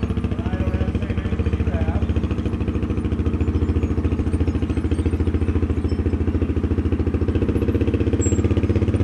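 Off-road vehicle engine running steadily at low throttle with a fast, even pulse, rising slightly in level partway through as the side-by-side crawls up the rock.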